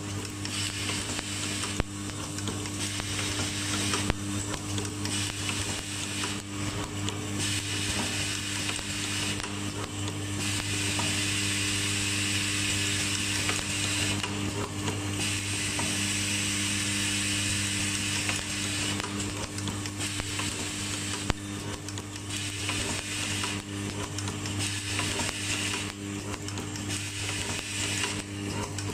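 An automatic silver contact riveting machine running: a steady hum under continuous mechanical rattling. The rattling swells into louder, higher stretches that come and go, the longest in the middle, with a few sharp clicks.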